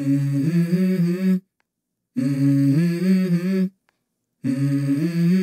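Background music: a wordless hummed vocal phrase, repeated three times with short silent gaps between.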